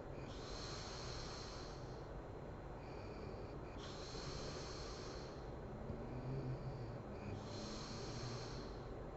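A sleeping woman snoring heavily: three slow, hissing breaths about three and a half seconds apart, with a low buzzing snore about six seconds in, the loudest moment.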